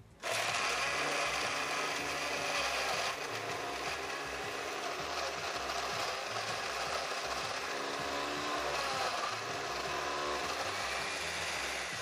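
Countertop blender switched on with a sudden start, running steadily as it crushes strawberries, cherries and cranberries with a splash of orange and lime juice into a frappé. The sound drops a little and evens out about three seconds in.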